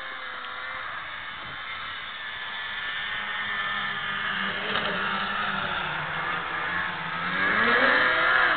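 Snowmobile engines running, one growing louder as it passes close about eight seconds in, its engine pitch rising and then dropping as it goes by.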